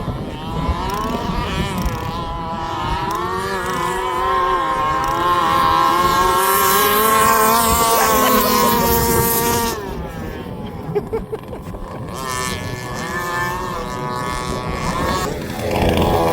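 Small two-stroke petrol engine of a large-scale gas RC car running at high revs. Its pitch climbs and wavers for several seconds and drops off about ten seconds in, then picks up again.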